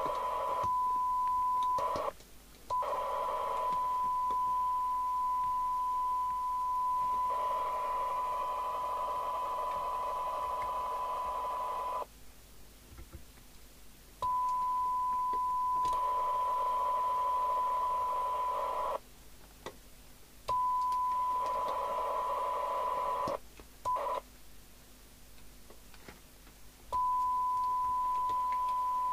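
A steady 1 kHz test tone with hiss from the FM CB radio's loudspeaker, a weak signal-generator signal being received during receiver sensitivity alignment. The tone and hiss cut out and come back several times.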